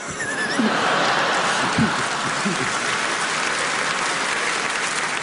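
Live audience applauding, building up in the first second and then holding steady, with a few brief calls or laughs from single voices in the first seconds.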